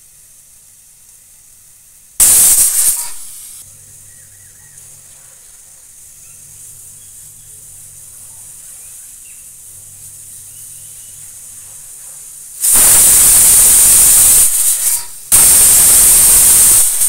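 Premier aluminium pressure cooker on a gas stove whistling three times as built-up steam lifts the weight: a short hissing blast, then two longer blasts close together, each cutting off sharply, with a faint steady hiss between. Three whistles is the cook's measure for the mutton being cooked through.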